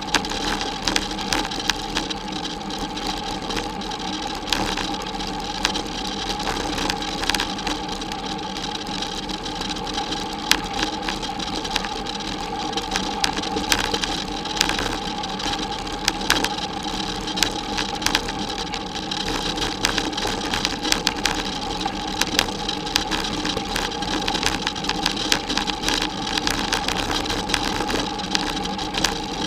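Bicycle rolling over a bumpy dirt farm track, with the bike and camera mount rattling and knocking constantly over a steady hum and a faint steady whine.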